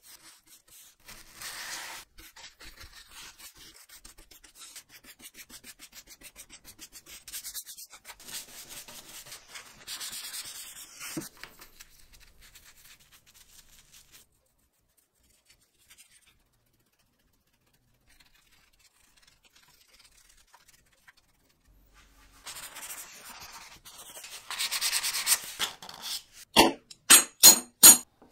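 Soft, quick rubbing strokes of a bristle brush spreading dark stain over bare wood. These die away to near silence midway. Near the end comes a louder run of sharp rubbing strokes, about four or five a second.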